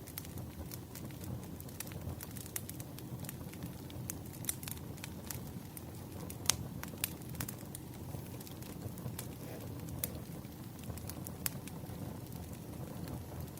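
Wood fire crackling: irregular sharp pops and snaps over a low, steady rumble, one pop louder than the rest about six seconds in.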